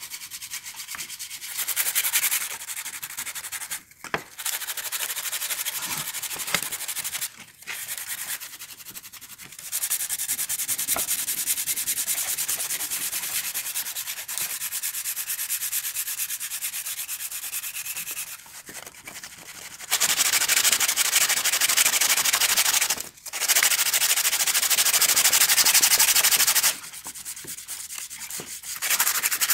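Sandpaper rubbed by hand on a wooden lantern frame: continuous rasping strokes with a few short pauses. It gets louder about two-thirds of the way in, with a brief break, then eases near the end.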